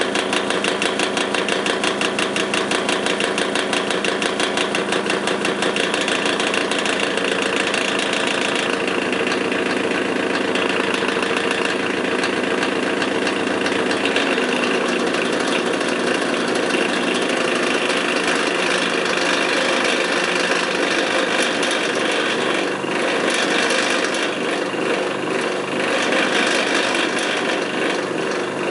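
Old Magnetek electric fan motor running on bad, worn-out bearings: a loud, steady, rough mechanical running noise with several steady tones and a fast pulsing rattle, strongest in the first few seconds.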